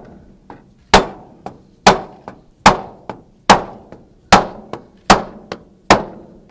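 Mallet striking a screw cap cover into a security screen frame, working it down the side piece so it snaps in. Seven sharp knocks come a little under a second apart, each with a lighter tap in between.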